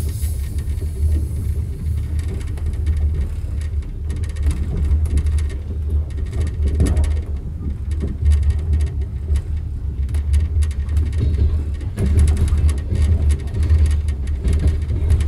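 Moving passenger train heard from inside its carriage: a steady low rumble of the car rolling on the rails, with faint scattered clicks over it.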